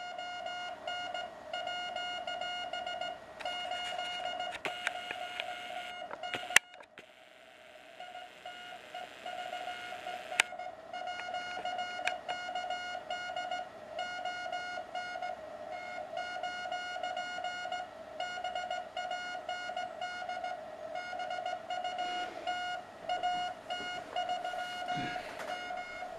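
Morse code (CW) signal from a Yaesu FT-200 receiver, heard through the MFJ-781 DSP filter's speaker: a steady beeping tone keyed on and off in dots and dashes. About six and a half seconds in, a click cuts the tone off and leaves hiss, until a second click about four seconds later brings it back.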